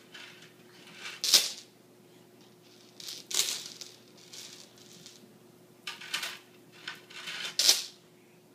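Plastic bead necklace rattling against a wooden table and hardwood floor as a toddler handles and drops it, in four short clatters.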